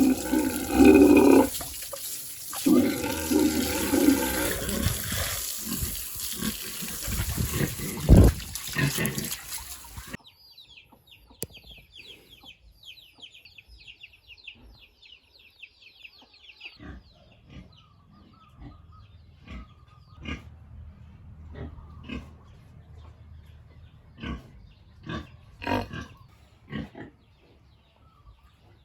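Pigs squealing and grunting loudly for about the first ten seconds. The sound then drops suddenly to a much quieter stretch of rapid high chirping, followed by scattered short knocks and faint grunts.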